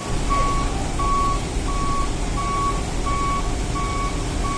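A vehicle's reversing alarm beeping at an even pace, about seven beeps at one every 0.7 s, over a steady low engine rumble.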